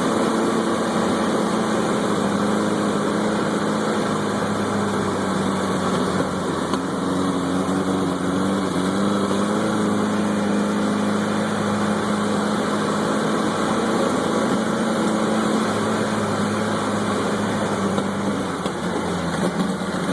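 Off-road vehicle's engine running steadily at low revs, heard from the passenger seat, its pitch rising and falling slightly.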